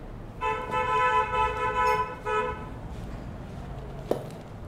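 Vehicle horn honking: one long steady honk of nearly two seconds, then a short second honk. A light knock follows about a second and a half later.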